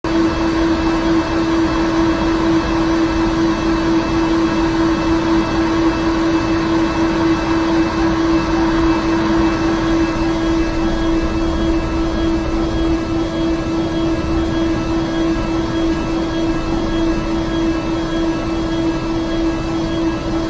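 DMG MORI DMU-50 five-axis mill cutting a metal block at a high feed rate (1600 inches per minute) with a Kennametal cutter under flood coolant. A steady pitched tone from the cut sits over a constant wash of spray noise, unbroken throughout.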